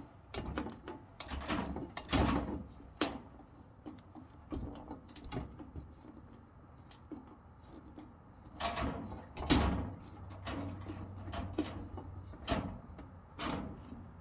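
Scattered knocks and light metal clatter from handling a Hyper Tough sheet-metal tool cabinet and its parts during assembly, with several louder knocks about two, nine and twelve seconds in.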